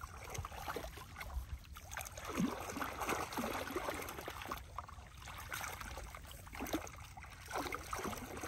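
Muddy water sloshing and squelching in a shallow ditch as hands grope through the mud for fish, in short irregular swishes.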